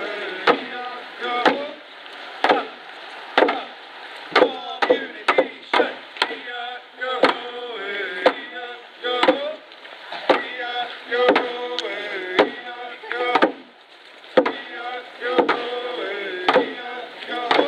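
Voices singing a song over a steady hand-drum beat of about one to two strikes a second.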